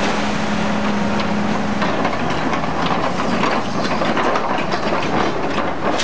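Scrap metal clattering and rattling as an excavator grapple loads it into a hydraulic metal baler's chamber, over the steady running of the machinery. A steady hum is heard early, and the clanking grows busier from about two seconds in.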